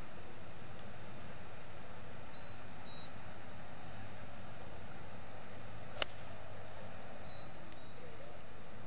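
A golf club striking the ball on a tee shot: one sharp crack about six seconds in, over a steady outdoor hiss.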